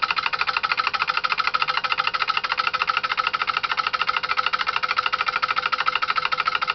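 Homemade relay-switched DC motor, built from microwave-oven transformer coils and magnetron magnets, running steadily at 13.5 volts: its relays switch the coils in a rapid, even clicking, with a faint steady hum underneath.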